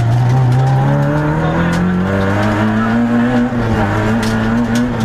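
Peugeot 106 XSi rally car's four-cylinder engine heard from inside the cabin under full load, revs climbing steadily for about three seconds, dipping briefly about three and a half seconds in, then held high.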